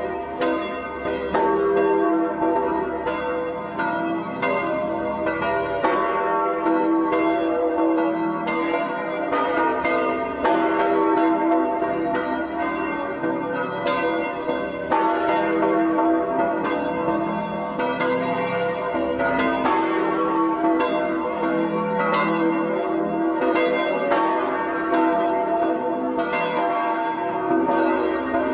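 Several church bells ringing together in a continuous peal, each new strike coming within about a second of the last and overlapping the hum of those before.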